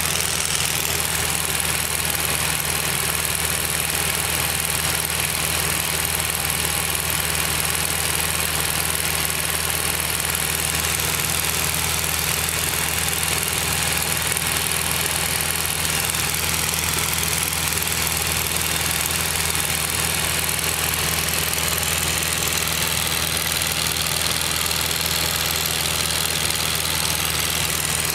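Mooney Mite single-seat light plane's piston engine running steadily in flight, heard from inside the cockpit as an even drone under a constant rush of airflow.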